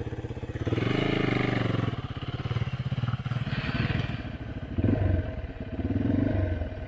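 Dirt bike engines: one idling close by with a steady putter while another is ridden through a muddy puddle ahead. The engine noise swells about a second in and again around five and six seconds in.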